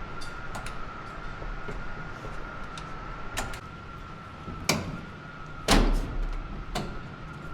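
A few sharp knocks and thumps, the loudest about six seconds in, over a steady high-pitched whine.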